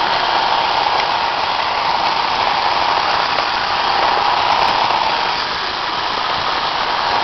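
Roomba robot vacuum running, its suction motor and brushes making a steady whir.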